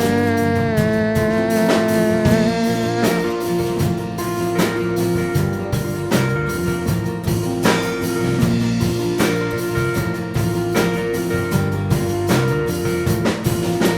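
Live band playing an instrumental passage between sung verses of a song, with a steady beat.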